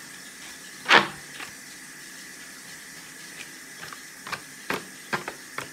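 Paper scratch-off lottery tickets being handled: one loud, brief paper rustle about a second in, then four or five short crinkles and taps near the end.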